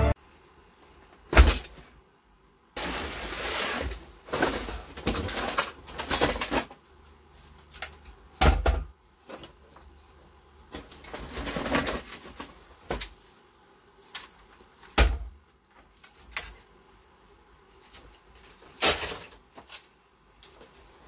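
Scrap items being handled on a wooden workbench: several knocks as things are set down, and rustling and rummaging in a cardboard box between them.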